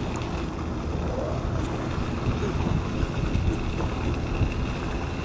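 Steady low rumble with a faint, steady high whine running through it.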